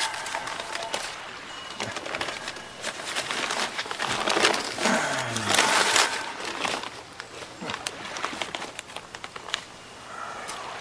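Newspaper crinkling and rustling as it is unfolded by hand, with many small crackles, loudest in the middle. A brief low call falls in pitch about five seconds in.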